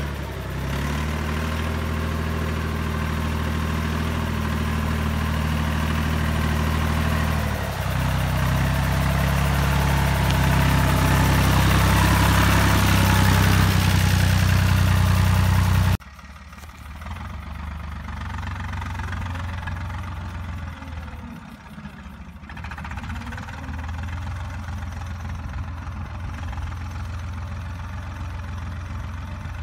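Store 404 tractor's diesel engine running as it drives through mud, growing louder as it comes close, with a brief dip about eight seconds in. After a sudden cut about halfway through, the engine is heard more faintly from a distance.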